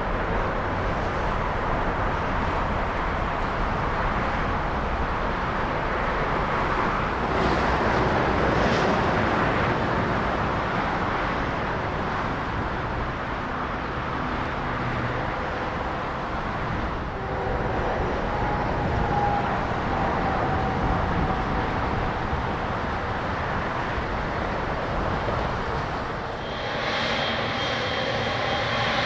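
Jet airliner engines running, a steady rushing noise, with faint whining tones joining partway through and a higher engine whine coming in near the end.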